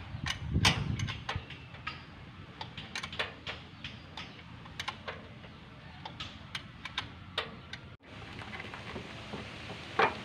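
Irregular sharp metallic clicks and taps of hand work on an engine as an alternator is refitted, a few a second. About eight seconds in the sound cuts to a steadier hiss with one louder click near the end.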